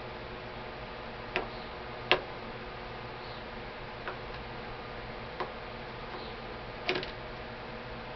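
About five scattered sharp metal clicks and taps from a screwdriver and small parts as the screws of an AK-47's sling mount are worked out, the loudest about two seconds in and near the end, over a steady low hum.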